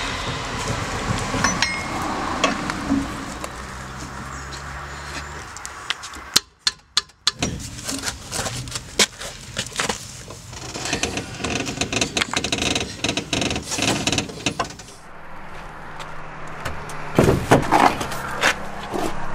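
Tyre change: a four-way lug wrench clanking and clicking on a car's wheel nuts, and metal knocks as the steel wheel and spare are handled, the loudest knocks near the end. A low steady hum runs under parts of it, and there is a brief near-silent stretch with a few sharp clicks about six seconds in.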